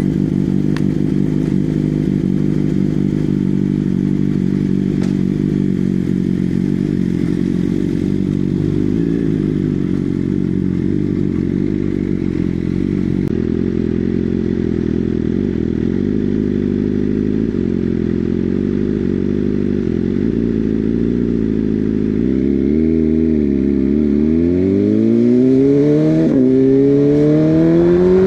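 BMW M1000R's inline-four running through a decatted Akrapovic full system with a replica SC Project S1 end can fitted with a Leiker baffle: a steady low note for most of the time, then a dip and a rising note as the bike pulls away and accelerates, with a gear change about two seconds before the end.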